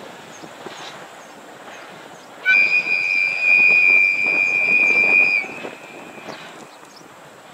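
DE15 diesel locomotive's warning whistle sounding one steady, high-pitched blast of about three seconds, starting a couple of seconds in, over the low running noise of the locomotives.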